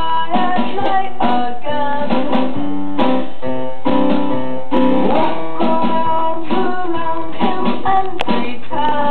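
Guitar-led music playing steadily, with plucked and strummed notes.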